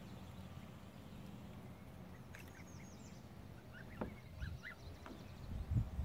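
Domestic geese giving short, soft calls now and then while bathing in a plastic paddling pool, with a sharp splash-like sound about four seconds in. A low rumble grows louder near the end.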